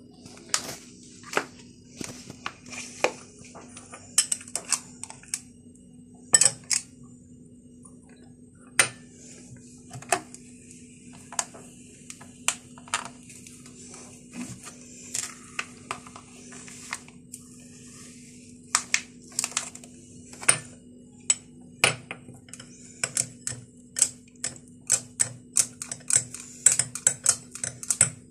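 Metal ice cream scoop scraping through frozen ice cream and clicking and knocking against plastic tubs and a glass bowl: a long run of sharp, irregular clicks and scrapes, over a steady low hum.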